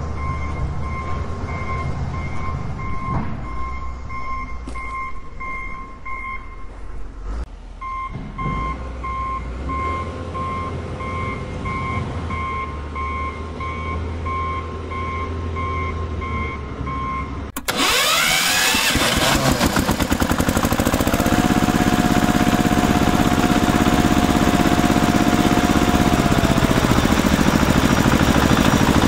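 Repeating electronic beeps like a vehicle's reversing alarm. About two-thirds of the way in the sound switches abruptly to a louder engine sound that starts with a rising whine and then runs with a steady tone that drops away near the end.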